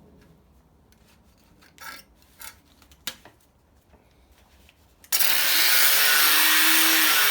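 A few faint handling clicks, then about five seconds in an angle grinder's cutting disc bites into metal abruptly: a loud, harsh, steady hiss, with the motor's pitch dipping and recovering under the load.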